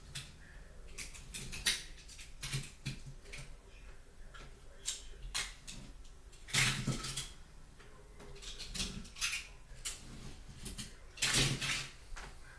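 Die-cast toy cars being picked up, shifted and set down by hand: irregular light clicks and clatters, with louder rattles about halfway through and again near the end.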